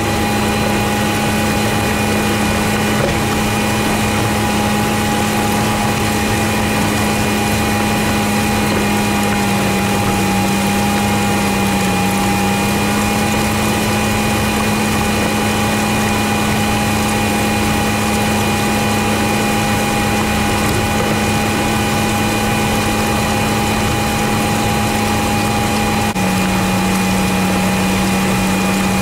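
Tractor pulling a pneumatic seed drill while drilling: a steady engine drone with a steady higher whine over it. The pitch dips slightly about twelve seconds in and steps down a little near the end.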